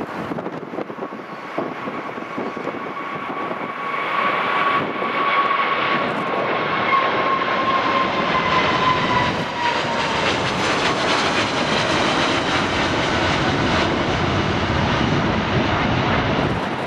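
Turbofan engines of a twin-engine jet airliner at takeoff thrust, a steady roar that grows louder as it climbs out overhead. A whine through the roar slowly drops in pitch as the aircraft passes.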